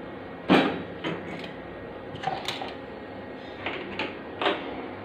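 Small washed containers being set down upside down on a wire dish rack: scattered light knocks and clinks, the loudest about half a second in.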